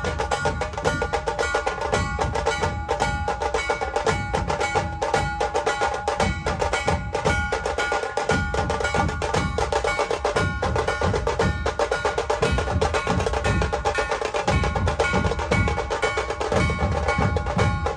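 Percussion music: fast, dense drumming with sharp wood-block-like strikes over a few steady held tones, going on without a break.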